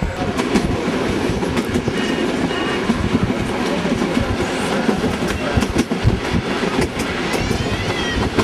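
Passenger train running along the track, heard from on board: a steady rumble with rattling and clacking of the wheels over the rails.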